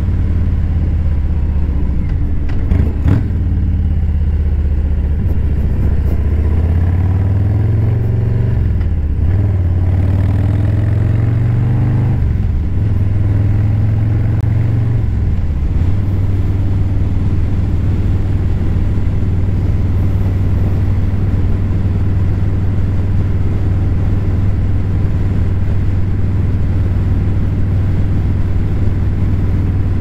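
Exhaust note of a Harley-Davidson Low Rider S's Milwaukee-Eight V-twin through a 2-into-1 stealth exhaust. The engine pitch climbs and drops back three times in the first half, then holds a steady note for the rest.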